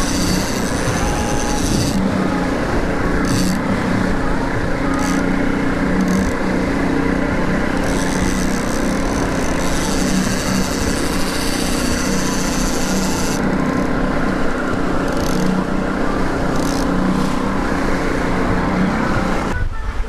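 Outboard motor running steadily at trolling speed, with water rushing in the boat's wake.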